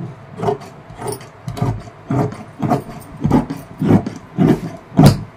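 Large tailor's shears cutting through a length of fabric: a steady run of snips, about two a second, nine or so in all, the last one the loudest.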